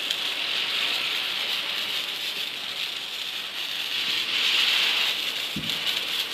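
Ground fireworks, spinners and fountains, spraying sparks on the road: a steady hissing crackle that swells a little about four to five seconds in.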